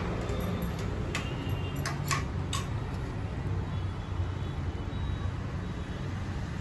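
Steady low indoor hum with a few short, sharp clicks about one to two and a half seconds in.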